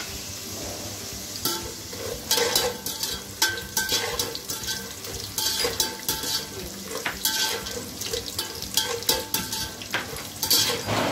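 Peanuts, cashews and raisins sizzling as they fry in hot oil in a metal pot. From about a second and a half in, a slotted metal spatula repeatedly scrapes and clinks against the pot as they are stirred.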